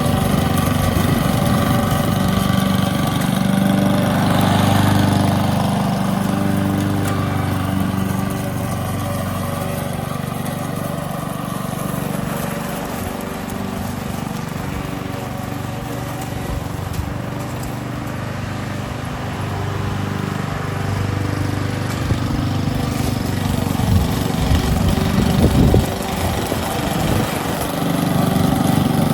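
Honda 21-inch walk-behind lawn mower running steadily as it is pushed through fallen leaves. Its engine note dips in the middle and rises again near the end, with a few sharp knocks about three-quarters of the way through.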